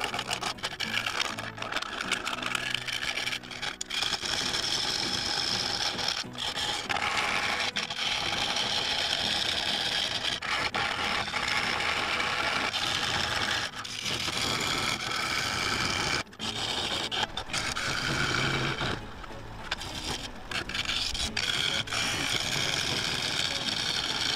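A turning tool cutting and scraping a spinning claret ash bowl blank on a wood lathe, the cut breaking off briefly several times as the tool comes off the wood. Background music plays underneath.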